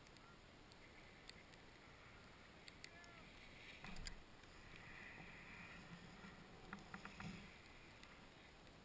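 Faint hiss of a snowboard sliding and carving over snow, with a few light clicks and a louder knock about four seconds in.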